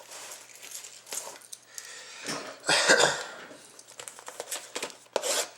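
Rustling and light knocks from handling a sealed trading card box, with one louder rustle about three seconds in and a cluster of sharp clicks near the end.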